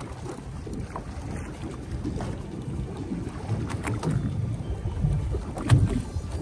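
Wind buffeting the microphone and water noise around a small boat at sea, an uneven low rumble with a few short knocks, the loudest near the end.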